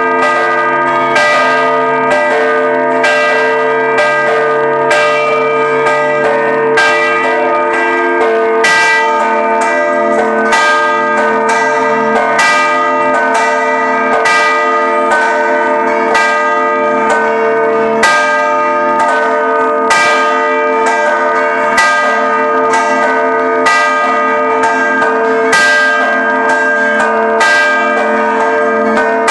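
Several church bells ringing a continuous peal for a procession. Strokes come about once a second over the sustained, overlapping ring of the bells.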